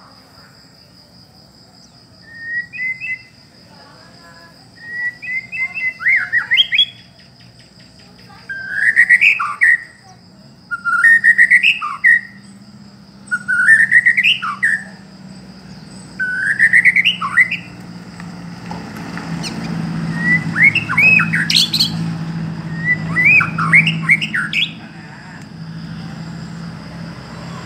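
Long-tailed white-rumped shama singing loud whistled song phrases with quick rising and falling notes, about eight phrases a second or two apart. A steady high-pitched tone runs underneath, and a low rumble swells in the second half.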